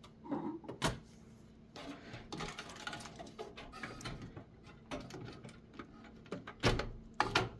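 Computer parts being handled inside a desktop PC case: scattered light clicks, knocks and rustling, with a couple of sharper knocks near the end.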